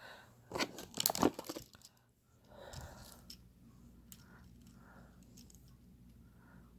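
Handling noise: a quick run of sharp rustling and clattering strokes in the first second and a half, then faint intermittent rustling.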